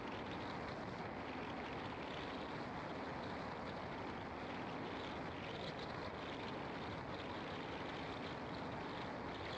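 Steady road noise of a car driving on an asphalt road: an even rush of tyre and wind noise that holds level throughout.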